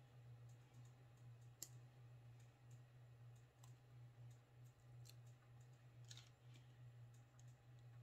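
Near silence: a low steady hum with a few faint, scattered clicks of small craft pieces being picked up and handled on a tabletop.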